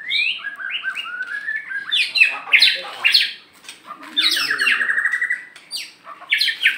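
White-rumped shama singing: a run of varied whistled phrases with sweeping glides, a fast even trill about halfway, and harsh rasping notes mixed in.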